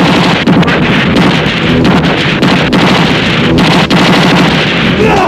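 Action-film sound effect: a loud, continuous rushing noise that starts abruptly, with irregular sharp cracks through it.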